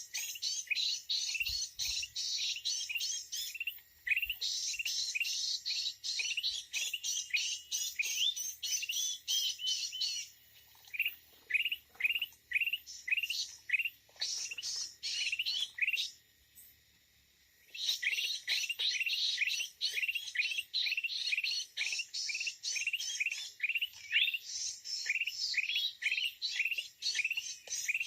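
Birds chirping: a rapid, steady run of short, sharp, falling chirps, many overlapping. They thin out midway and stop briefly for a second or two before starting again.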